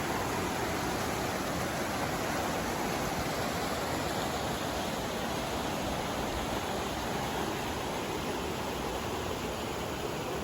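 A steady, even rushing noise, unchanging throughout.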